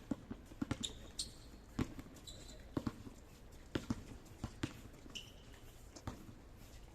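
Basketball bouncing on a court floor in irregular thuds during play, with three short, high sneaker squeaks.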